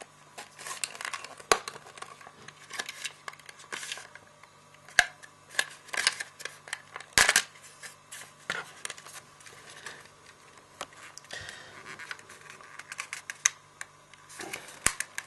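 Plastic body shell of a Hornby Class 47 OO gauge model locomotive being prised off its chassis by hand: irregular sharp clicks and light scraping as the plastic clips are worked loose and the shell is turned over in the hands.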